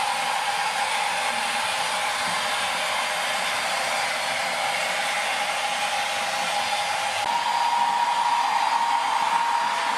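Model railway trains running: a steady whirring hiss with a steady whine. About seven seconds in, the whine shifts a little higher and gets slightly louder.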